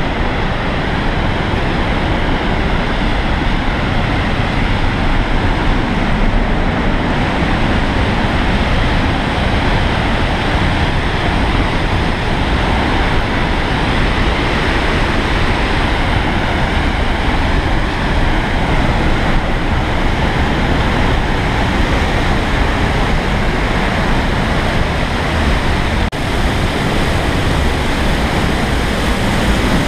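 Loud, steady rushing roar of a large waterfall pouring down a rock gorge.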